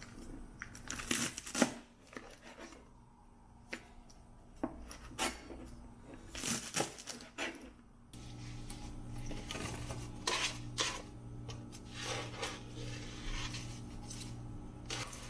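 A kitchen knife chopping through bunches of green onions on a cutting board in short runs of knocks. About halfway a steady low hum sets in, with clinks and knocks as a metal tray and pan are handled and the cut greens are tipped into the pan.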